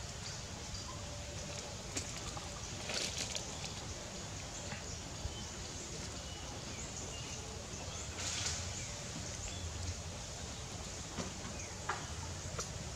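Outdoor ambience: a steady background hiss with a few brief crackles, clustered around three seconds in and again around eight seconds.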